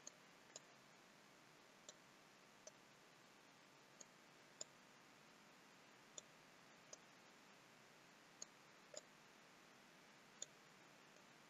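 Faint computer mouse clicks, about eleven, scattered and often in pairs about half a second apart, over near silence.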